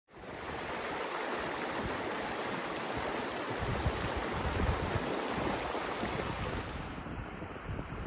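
Shallow mountain stream rushing and splashing over rocks, a steady noise of running water. From about halfway, gusts of wind buffet the microphone.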